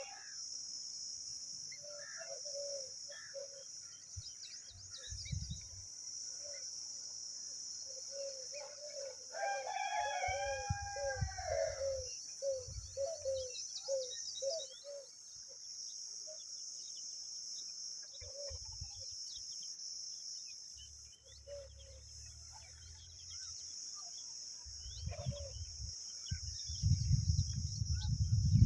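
Birds calling: strings of short, low repeated notes, with one longer call in several tones about ten seconds in, over a steady high-pitched hiss. Low thumps come now and then and grow louder near the end.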